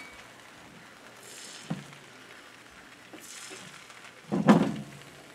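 Crepe batter sizzling softly in a buttered cast-iron skillet, a faint steady hiss with a small click partway through. Near the end comes one brief louder sound.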